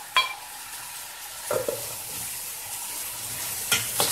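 Diced vegetables sizzling in olive oil in a stainless steel pot, with a few sharp knocks of a wooden spoon as potato cubes are pushed in and stirred.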